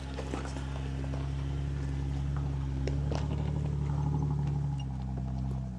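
Off-road 4x4's engine running steadily as the vehicle drives along a trail, with a few light knocks and rattles. The engine note swells a little and then eases off near the end.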